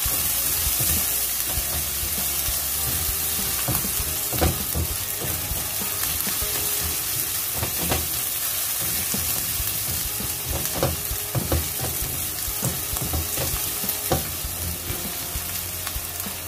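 Sliced shallots, garlic and bird's eye chillies sizzling in hot oil in a non-stick wok, sautéed until fragrant. A spatula scrapes and taps against the pan as they are stirred.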